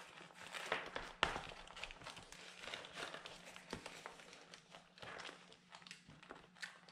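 Clear vinyl zippered pouch crinkling and rustling as rolls of adhesive tape are handled and packed into it, with irregular light clicks and knocks of plastic.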